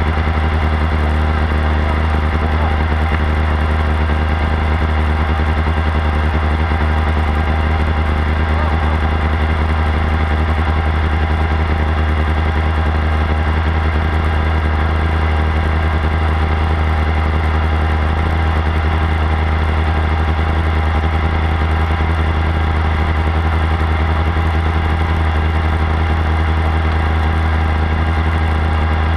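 Formula SAE race car's engine idling steadily at close range, with no revving.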